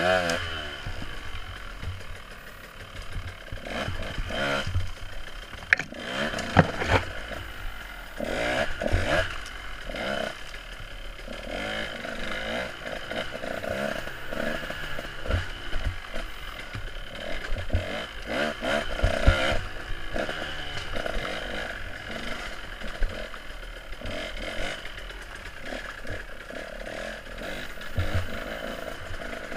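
Off-road dirt bike engine running as it is ridden over rough trail, revs rising and falling, with repeated clatter and knocks from the bike jolting over the ground.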